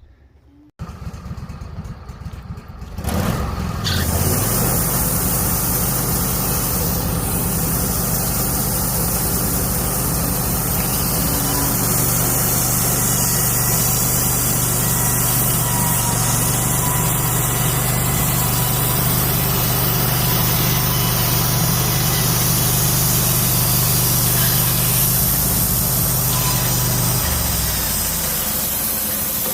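Wood-Mizer LT15 Wide bandsaw mill running. It comes in suddenly about a second in and rises over the next few seconds to a steady, loud run as the band blade saws through a cedar log. Near the end the engine pitch drops as it throttles back.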